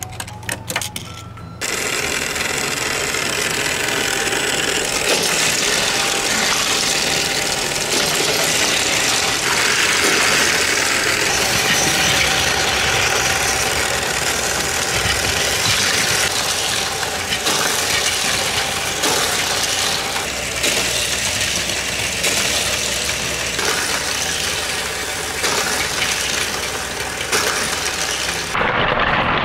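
Battery-powered Plarail toy train and Tomica highway toy course running: a steady, loud motor noise with plastic wheels and toy cars rattling along the plastic track, starting about a second and a half in.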